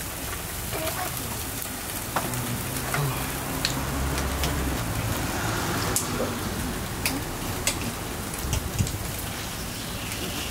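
Eel fillets grilling over charcoal: a steady sizzle with scattered sharp crackles and pops.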